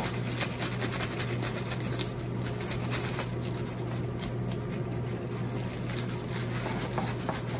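A fish scaler scraping the scales off a Japanese sea bream inside a plastic bag: quick rasping strokes with crinkling plastic. The strokes are thick for the first couple of seconds, then sparser. A steady low hum runs underneath.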